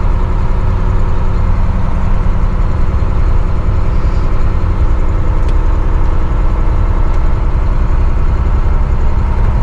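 Truck engine running while driving, heard from inside the cab with road noise: a steady, loud low drone with an even hum that holds the same pitch throughout.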